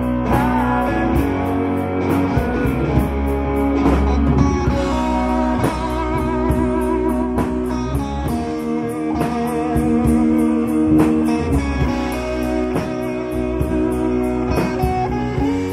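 Live rock band playing an instrumental stretch, electric guitars leading over drums and bass with a steady beat of cymbal strokes.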